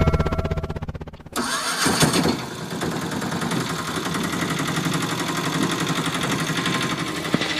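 Battery toy motors: a toy helicopter's spinning rotor whirs and fades over the first second. After a sudden change, a different small motor and its plastic gears run with a steady mechanical whirr.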